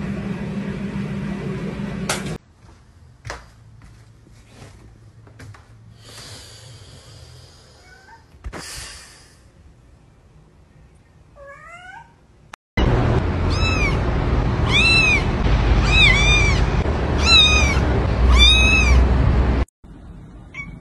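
A cat meowing over and over: six short, arching meows about a second apart over a steady low hum. Before them there is a quieter stretch with a few clicks.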